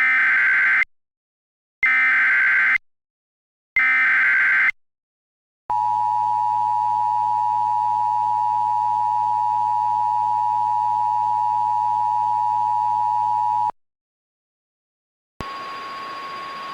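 Emergency Alert System SAME header: three short bursts of screeching digital data tones, each about a second long and two seconds apart. These are followed by the eight-second two-tone EAS attention signal, which cuts off abruptly. Near the end a single steady tone over a hiss begins.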